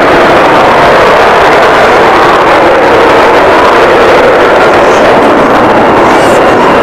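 Avro Vulcan bomber's four Olympus turbojet engines passing in flight: a loud, steady jet noise with no breaks.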